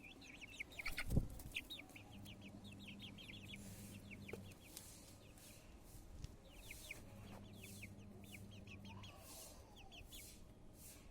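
Chicks peeping in a steady stream of short, high, falling notes, with a single loud thump about a second in and a low hum that comes and goes.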